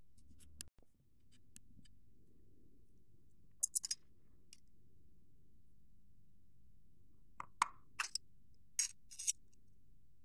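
Tin snips cutting thin brass sheet into a strip: short clusters of sharp snips, about four seconds in and twice more near the end. A few faint clinks of metal scrap at the very start.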